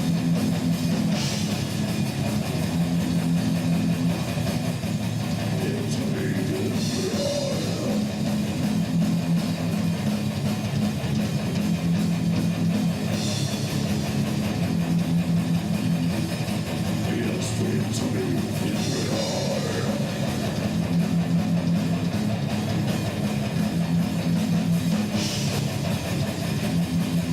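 Rock music with heavy, distorted electric guitar and a drum kit.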